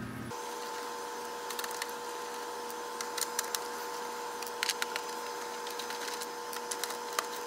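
Security screws being worked out of the Commodore 128's plastic case with a security bit: scattered small clicks and scrapes over a steady, even whine.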